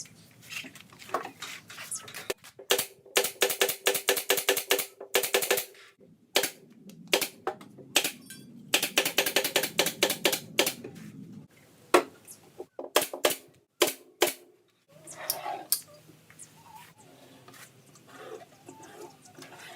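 A power screwdriver drives screws in two bursts of a few seconds each, a fast rattling clatter over a steady motor tone. Single clicks and knocks fall between the bursts.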